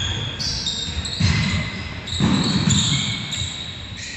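Basketball bouncing on a hardwood gym floor amid players' running steps, with short high sneaker squeaks on the floor, ringing in a large hall.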